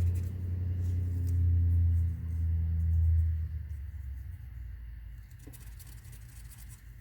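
Low, steady engine drone of a motor vehicle that fades away after about three and a half seconds, leaving a quiet low rumble.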